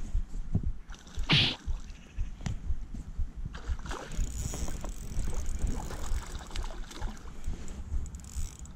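Spinning reel being wound in on a lure retrieve, under a constant low rumble of wind and handling noise on the body-worn microphone. A short, loud rustle comes about a second and a half in.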